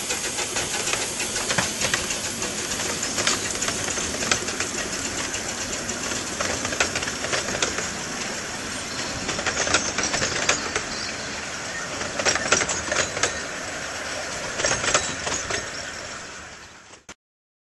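Small Exmoor-built narrow-gauge steam locomotive pulling its wooden carriages away: a constant hiss with many sharp clicks and clanks of wheels over rail joints, busiest about ten to thirteen seconds in. The sound fades and cuts off just before the end.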